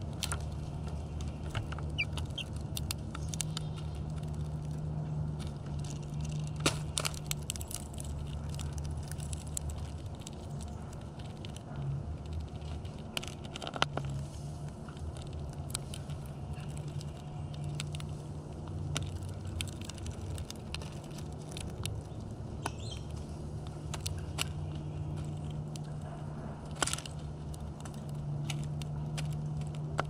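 House finch pecking and husking seeds in a plastic window feeder: scattered sharp clicks and taps over a steady low hum.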